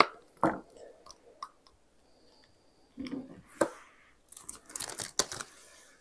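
Hard-candy cough drops being pressed and popped out of a silicone mold: scattered small clicks and crackles, with a pause partway through and a quick run of ticks near the end.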